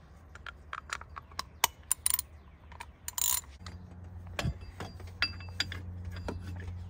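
Ratchet wrench clicking in short irregular runs as it turns the plastic cap off an oil filter housing. A steady low hum sets in about three and a half seconds in.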